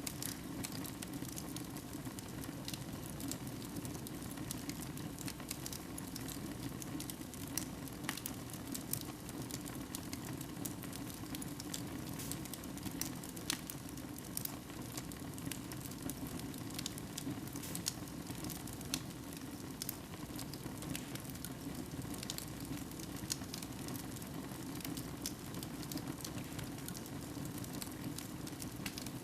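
Wood fire burning in a fireplace: a steady low rush of flames with frequent sharp crackles and pops at irregular intervals.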